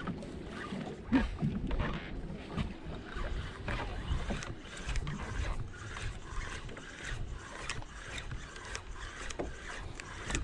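Waves lapping against a drifting boat's hull, with wind buffeting the microphone and scattered small knocks.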